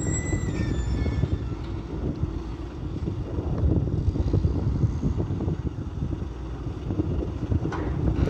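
Caterpillar wheel loader's diesel engine running as the loader reverses and turns away from the dump truck after dumping its load: a steady low rumble.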